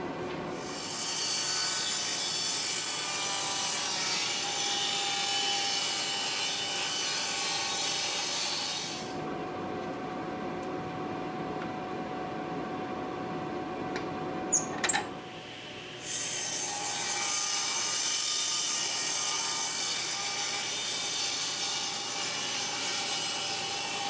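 Table saw driven by a 2 hp induction motor ripping cedar: the blade cuts through the wood in two long passes, from about a second in to about nine seconds, and again from about sixteen seconds on. Between the passes the saw runs more quietly without cutting, and a couple of sharp clicks come just before the second pass.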